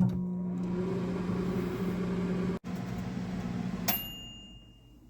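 Samsung MW2031U microwave oven running with a steady low hum, which drops out for an instant a little past halfway. Just before four seconds in the hum stops and the end-of-cycle chime rings once and fades away, signalling that the cooking is done.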